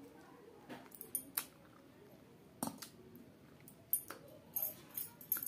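About nine short clicks and clinks of a meal eaten by hand, with bangles and a steel rice plate knocking as a green mango is bitten and set down on the plate. They are spread irregularly and are densest near the end.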